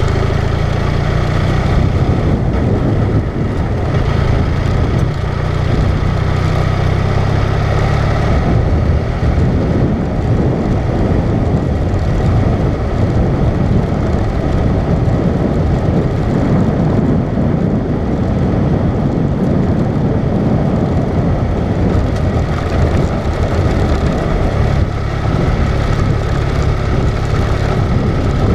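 Vehicle driving along a gravel road: a steady engine hum under continuous noise from the tyres on the gravel. The low engine hum is strongest for the first several seconds and again near the end.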